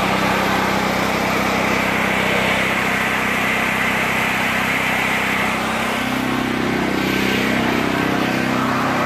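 Chicago Electric portable generator's small gasoline engine running steadily and loud, freshly started after four years in storage. Its note shifts slightly about six seconds in.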